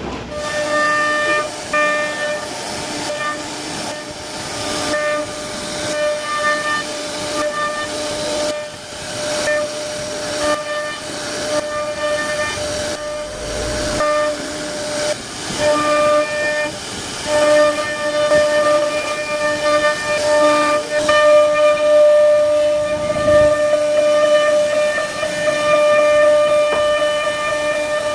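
CNC router spindle whining at a steady pitch over a hiss as the bit carves wood. The whine breaks off briefly again and again and comes straight back.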